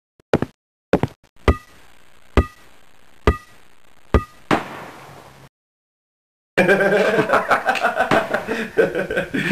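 A series of sharp knocks, about one a second, the last four each with a short ringing tone after the strike. After a second's silence, a dense, continuous stretch of voices that sounds like laughter starts and runs on.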